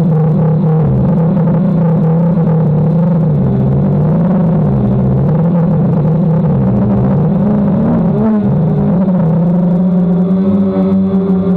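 DJI Phantom quadcopter's motors and propellers humming steadily, the pitch wavering up and down as the motors adjust, with a brief dip and glide about eight seconds in.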